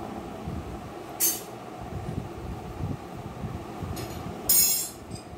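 Hand squishing raw chicken pieces through a wet coriander and green chilli marinade, over a steady fan hum. Two short, sharp hisses cut in, a brief one about a second in and a louder one near the end.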